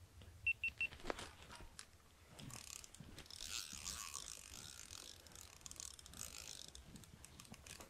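A spinning fishing reel on a feeder rod whirring and clicking as a hooked fish is reeled in, from about two and a half seconds in until near the end. Three quick high beeps come near the start.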